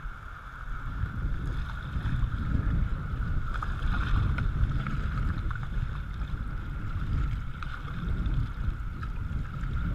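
River water rushing and slapping against a whitewater kayak's hull as it is paddled through a rocky rapid (rock garden), with paddle strokes splashing now and then. A steady low rumble of wind on the microphone runs under it.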